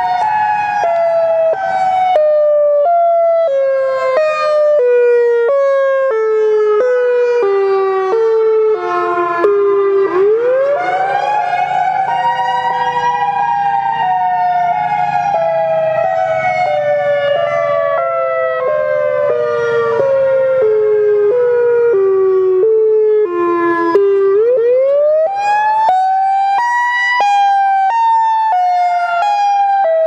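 Federal Signal EOWS-612 electronic outdoor warning siren sounding its Alternate Wail (high-low wail) test signal: a loud wail that falls slowly in pitch, chopped into rapidly alternating high and low steps. The pitch climbs quickly about ten seconds in and again near twenty-four seconds, then falls again.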